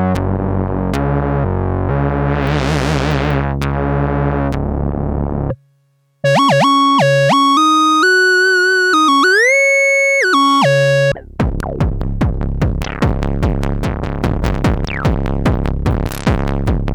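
Dave Smith Instruments Mopho Keyboard, a single-voice analog synthesizer, playing three preset patches in turn. First a low sequenced bass pattern whose filter sweeps up and back down, cutting off about five and a half seconds in. Then a bright single-note lead line with gliding pitch, and from about eleven seconds a dense rapid run of notes with falling sweeps.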